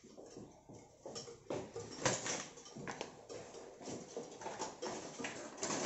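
A utensil stirring and beating batter in a glass bowl: light, irregular taps and clicks against the glass, quicker and more frequent from about two seconds in.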